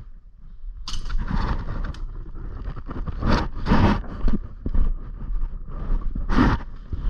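Rustling and scraping of clothing and gear in several short bursts, with scattered small clicks.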